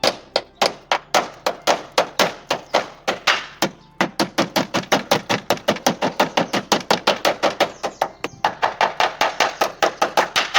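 Rapid, even hammer blows on sheet metal, about five a second, beating down a metal part that the new, larger tyre is rubbing against.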